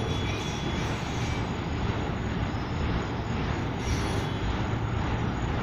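CSX autorack freight train rolling slowly past: a steady rumble of wheels on the rails, with a faint thin wheel squeal in the first second or so.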